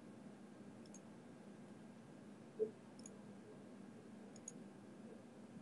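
A few faint computer mouse clicks over quiet room tone, with one short, low blip about halfway through.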